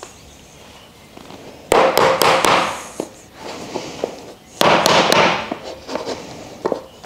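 A hammer knocking wooden pieces of a slatted wooden shelf into place: two loud flurries of quick sharp blows, about two and five seconds in, with a few lighter single taps between and after.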